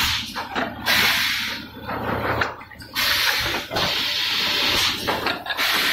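Automatic four-cavity PET bottle blowing machine running, with three loud bursts of compressed-air hiss about two and a half seconds apart as each cycle blows and exhausts the air, over a steady low machine hum.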